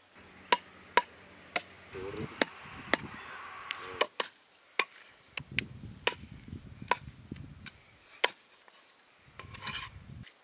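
Meat cleaver chopping bone-in mutton breast on a wooden tree-stump block: sharp, irregular chops, roughly one a second, that stop about eight seconds in.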